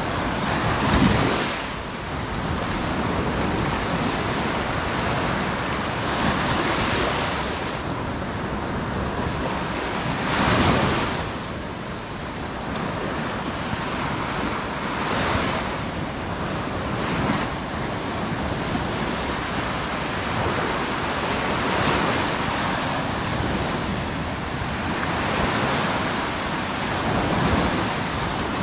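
Sea surf washing onto a beach: a steady rush of waves, with a louder wave breaking every few seconds.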